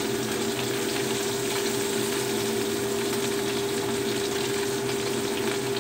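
Tofu frying in oil in a wok, a steady sizzle with fine crackling, over a steady low hum.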